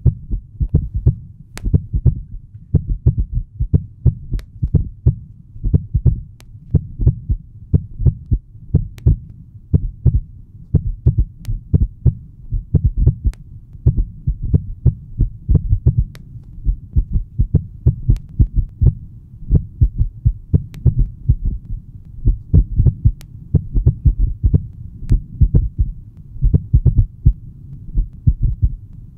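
Dense, uneven low thudding pulses, several a second, with faint sharp clicks on top.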